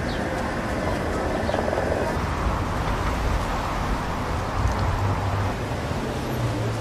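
City street ambience: a steady wash of traffic noise with people's voices in the background, and a low vehicle engine hum that grows stronger about four and a half seconds in.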